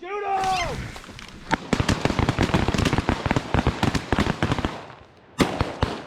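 A brief shout, then a rapid, overlapping volley of many 12-gauge shotguns fired by a party of hunters at geese, dozens of shots in about three seconds, with two more shots near the end.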